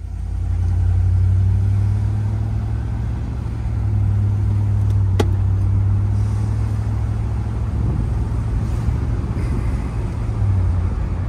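1965 Pontiac Bonneville's V8 engine and exhaust droning low and steady while cruising, heard from inside the car with road noise. A single sharp click comes about five seconds in.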